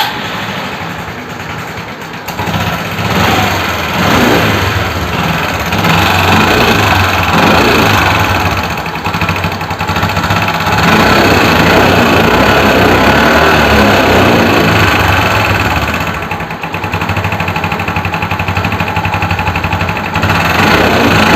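Suzuki Access 125 scooter's single-cylinder engine running with a bad rattling clatter, idling and revved up and down several times, then held high for a few seconds. The clatter is valve tappet noise, and it sounds like a damaged timing chain tensioner: the engine has been run with no engine oil.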